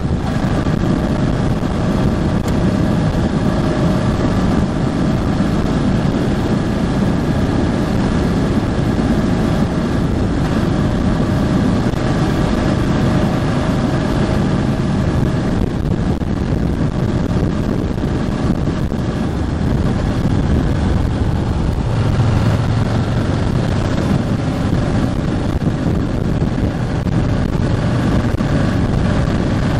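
Ducati Hypermotard 1100S's air-cooled L-twin engine running steadily under way while the bike is being run in. About two-thirds of the way through, the low engine note becomes deeper and stronger.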